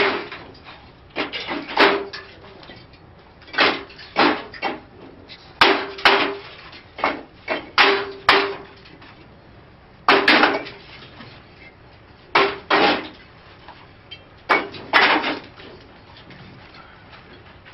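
Bricks knocking together as they are handed down and stacked in a kiln chamber: sharp clacks in quick groups of two to four, coming every couple of seconds, some with a short ring.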